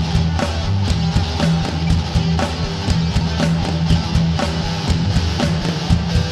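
Rock music with electric guitar and a steady drum beat.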